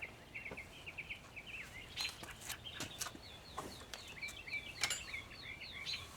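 A songbird chirping in a quick, repeated, jumpy series of high notes, with a few sharp clicks and taps from hand work in between.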